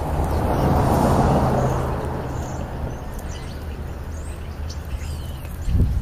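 A vehicle passing, rising to a peak about a second in and fading over the next second, with a low engine hum beneath. Faint whistling calls of European starlings come and go, and a soft knock sounds near the end.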